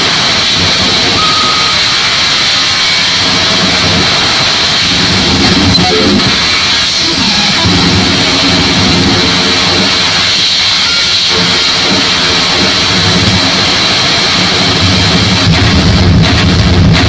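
Harsh digital noise music performed live: a loud, unbroken wall of distorted noise with a steady high hiss band over layered low droning tones, the low drones growing louder near the end.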